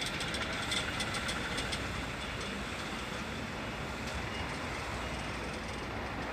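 Steady vehicle noise, such as buses or trains running, with a quick run of sharp clicks during the first two seconds.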